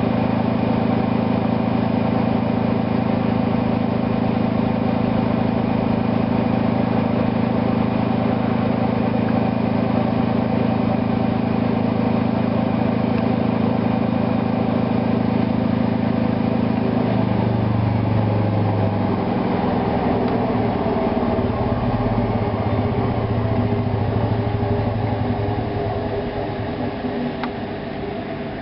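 Hoover washing machine running its spin cycle: a loud, steady motor-and-drum hum that turns unsteady and changes pitch about two-thirds of the way through as the spin winds down, then grows quieter near the end.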